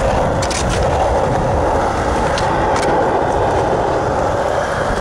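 Skateboard wheels rolling steadily over smooth concrete, a continuous rumble with a few light ticks.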